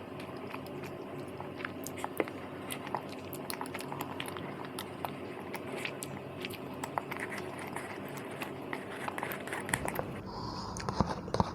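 Close-up eating sounds of chewy cheese tteokbokki rice cakes: soft biting and chewing with small wet clicks and smacks, scattered irregularly, over a steady background hum.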